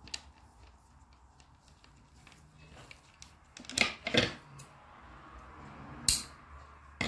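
Small wooden blocks of a strung trivet knocking together as it is handled, with two sharp clacks a little under four seconds in. A short snip of scissors cutting the cord comes about six seconds in.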